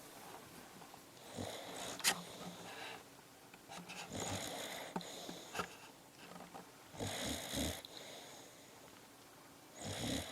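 A pet snoring in its sleep: four snoring breaths, about three seconds apart.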